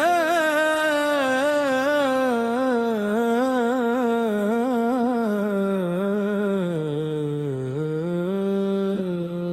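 A single voice sings a long wordless melismatic line in Indian classical devotional style, with wavering ornaments and vibrato, drifting slowly downward in pitch, then rising and settling on a steady held note near the end.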